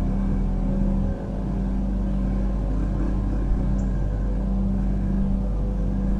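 Dirt bike engine running at a fairly steady pitch, with a brief dip and a change in its low note about a second in.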